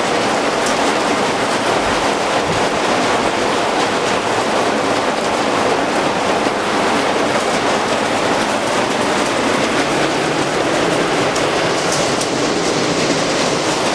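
Heavy rain with hail coming down hard in a dense, steady clatter.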